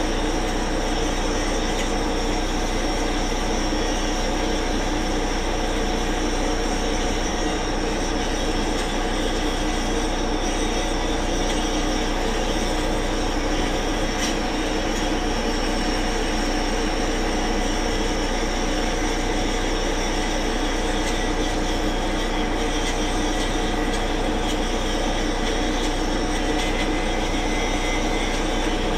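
A machine running steadily, a constant mechanical drone with several high, steady whining tones over it that do not change in pitch or loudness.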